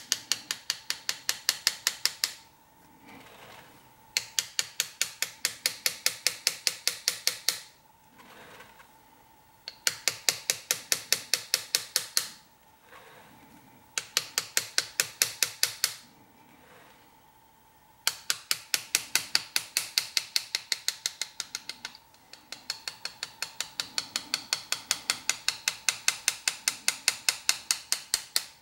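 A small engraving hammer tapping a hand graver as it cuts a scroll line into a metal plate. It comes in quick, even runs of about six light taps a second, each run lasting a few seconds, with short pauses between runs.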